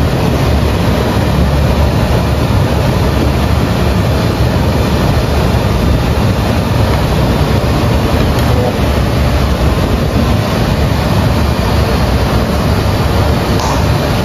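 Steady low roar of gas stove burners under claypots of simmering bak kut teh soup.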